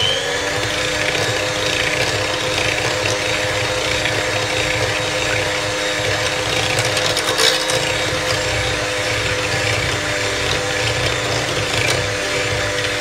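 Electric hand mixer running steadily at one speed, its beaters whisking a curd, sugar and oil batter in a steel bowl.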